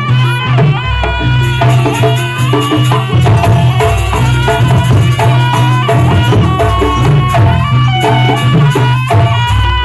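Loud amplified jaranan accompaniment music: a wavering reed melody, typical of the slompret shawm, over drums and jingling rattle percussion.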